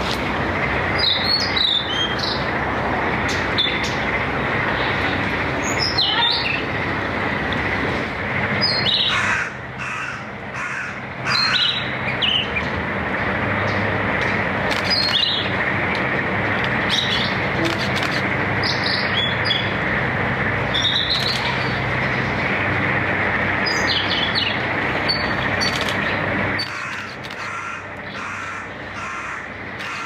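Blue-and-white flycatcher singing: short, clear, high phrases repeated every few seconds over steady background noise.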